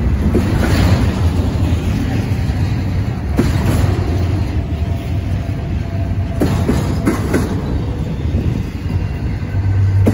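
A double-stack intermodal container train's well cars rolling past: a steady rumble of steel wheels on the rails, with sharp clacks as wheelsets cross rail joints, several in quick succession about six to seven seconds in. A faint thin squeal runs underneath partway through.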